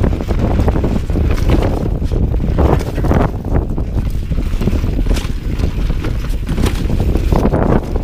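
Wind buffeting the microphone over the rumble of mountain bike tyres on a fast dirt and rock descent, with frequent short clatters and knocks from the bike over rough ground.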